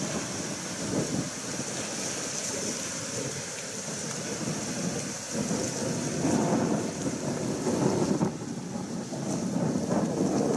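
Wind buffeting an outdoor microphone: an uneven low rumbling noise in gusts, strongest about six to eight seconds in, over a steady high hiss.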